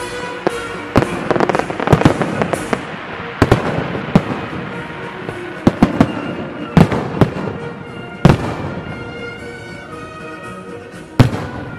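Fireworks salute bursting overhead: a string of sharp bangs and crackles, densest in the first three seconds, with a loud single bang near the end. Music plays underneath.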